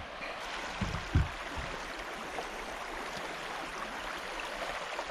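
Fast-flowing river water rushing steadily, with two short low thumps about a second in.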